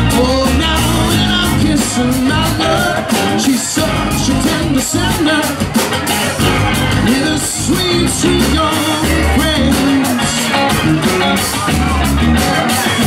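Live rock band playing an instrumental break between sung lines: electric and acoustic guitars, electric bass, keyboard and drum kit.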